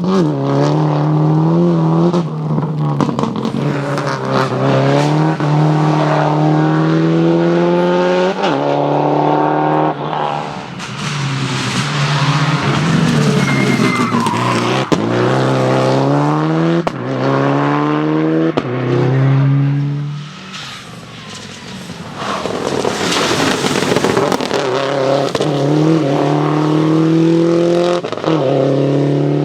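Subaru Impreza rally cars' turbocharged flat-four engines running hard through the gears, the pitch climbing and dropping back at each upshift, with tyres skidding on the stage surface. The engine fades briefly about two-thirds of the way through, then a loud rush of noise comes before the engine picks up again.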